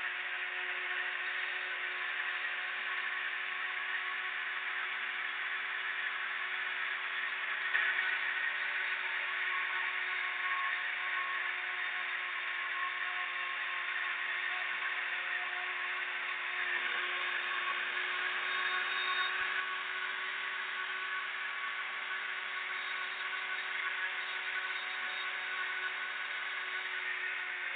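Electric machine tool running steadily while machining a pattern: a continuous whir with a steady hum. The cutting noise grows brighter for a few seconds past the middle.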